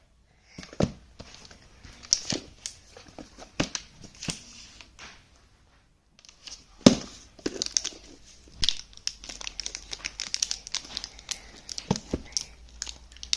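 Parcel packaging being handled and torn open: crinkling and tearing with many short sharp rustles. The sound breaks off for about a second roughly five seconds in.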